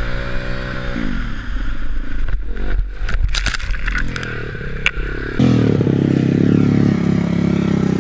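Motorcycle engine at full throttle, its revs falling away about a second in, followed by scraping, crackling and clattering impacts as the bike crashes and tumbles through dry grass and brush. The rider says the throttle stuck as he tried to stop. From about five and a half seconds a motorcycle engine runs steadily.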